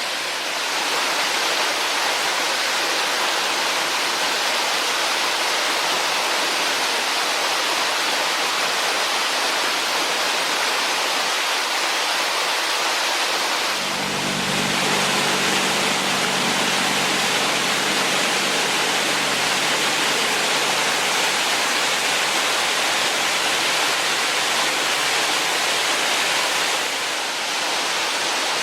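Mountain valley stream rushing in a steady wash of water noise. About halfway through, the sound shifts to a deeper, fuller rush.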